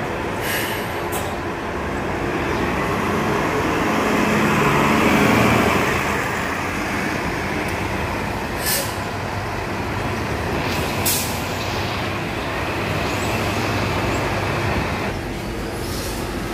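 City transit bus pulling away and driving off amid street traffic, its engine noise swelling about a third of the way in and then settling. A few short, sharp hisses break in along the way.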